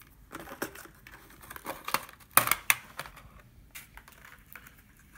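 Clear plastic toy case and packaging being handled: scattered crinkling, rustling and light plastic clicks, with a sharper clack about two and a half seconds in.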